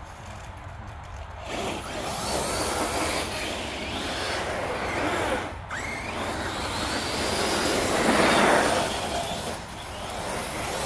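Two brushless electric RC cars, a TLR Typhon on 3S and an Arrma Kraton on 6S, driving hard over leaves and dirt: motor whine rising and falling with the throttle over tyre and gravel noise. It starts about a second and a half in and is loudest about eight seconds in as they pass close.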